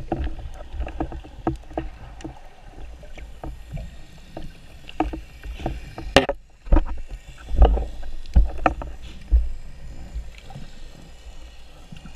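Underwater camera audio: a low rush of moving water with scattered clicks and knocks as the speargun and its line are handled. A few louder thumps come in the second half.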